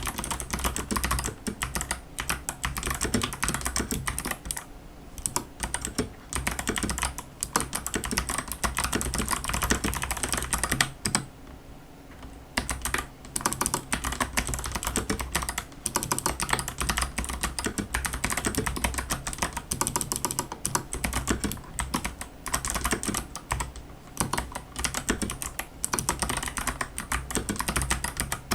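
Fast continuous typing on a mechanical keyboard with unlubricated Kailh Box White clicky switches under XDA keycaps: a dense run of sharp clicks, with a brief pause about eleven seconds in.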